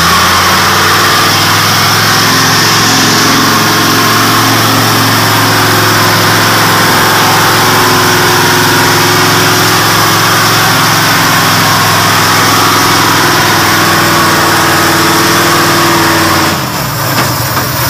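Engine of a heavily loaded log truck running under load at a steady pitch as it climbs a steep muddy slope. The sound drops and changes suddenly about a second before the end.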